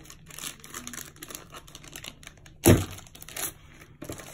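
Plastic packaging crinkling and rustling as a paddle antenna and other parts are handled in a foam-lined cardboard box, with small clicks. About two-thirds of the way through comes one loud, sharp thump, a hard object knocked or set down.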